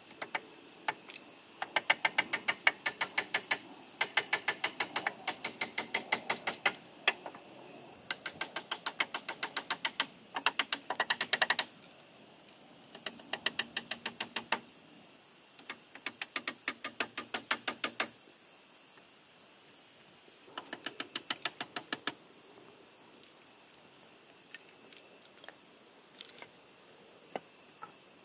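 Quick, even hammer taps on a nail driven into a wooden pole joint, about six to seven a second, in bursts of a few seconds with short pauses between them.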